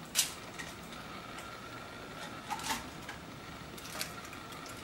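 A few sharp taps and clicks from handling baked chicken cones and their paper-and-foil moulds on a metal baking tray. The loudest tap comes just after the start, with two more about halfway and one near the end, over a faint steady background hum.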